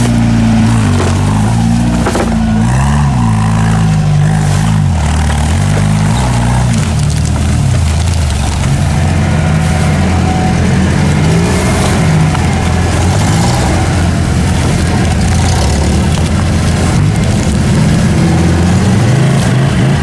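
Off-road vehicle's engine revving hard as it works to push through deep mud. The pitch swings up and down repeatedly for the first several seconds, then holds at a steadier, higher drone.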